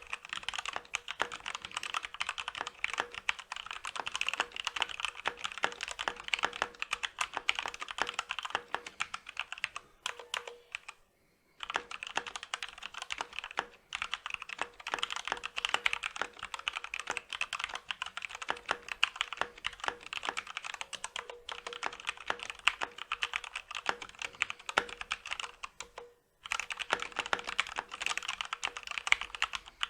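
Fast continuous typing on a Corsair K65 RGB Rapidfire mechanical keyboard with Cherry MX Speed Silver linear switches and stock ABS keycaps, a dense run of key clicks and bottoming-out clacks. The typing pauses briefly three times: for about a second roughly a third of the way in, once more shortly after, and again near the end.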